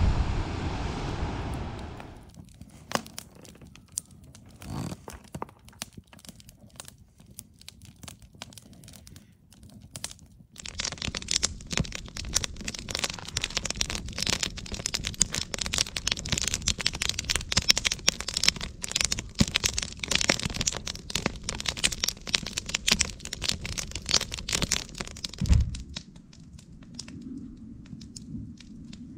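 Rounded beach cobblestones clattering and crackling as the surf rolls them over one another. Wind and surf at first, then scattered clicks, then a dense crackle from about a third of the way in that stops near the end with a thump.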